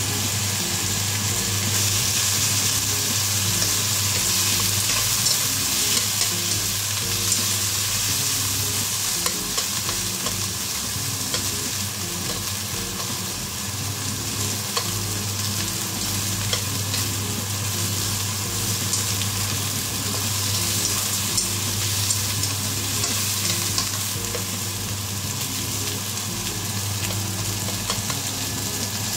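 Thin slices of beef frying with red onion, red bell pepper and garlic in a nonstick wok: a steady sizzle, with light clicks as chopsticks turn the meat. A steady low hum runs underneath.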